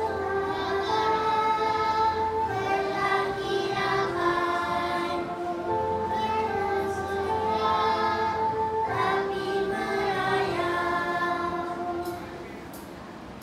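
A group of young children singing together in long held notes over a recorded instrumental backing track; the music drops away about a second before the end.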